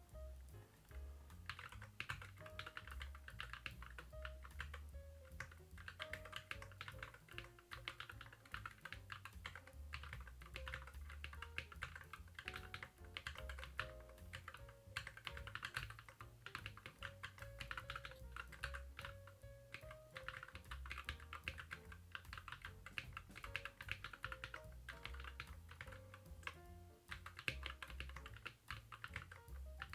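Fast, continuous typing on a Keychron Q11 split mechanical keyboard fitted with Cherry-profile double-shot PBT keycaps: a dense stream of key clacks at typing-test speed (about 50 words a minute), with a short pause near the end.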